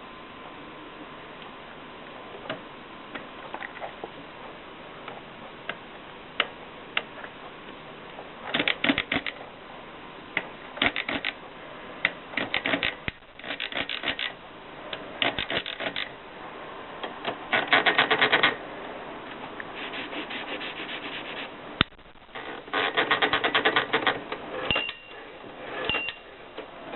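Typewriter keys being struck: a few scattered single keystrokes at first, then quick bursts of rapid typing in runs of about a second, with two brief high tones near the end.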